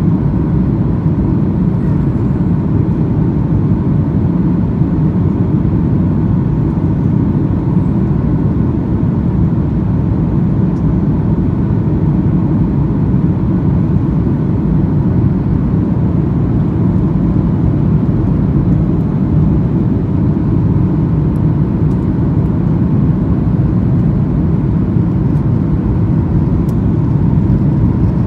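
Steady cabin noise inside a Boeing 737-900 in flight: a loud, even low rush of airflow and its CFM56 turbofan engines, with a faint steady whine above it.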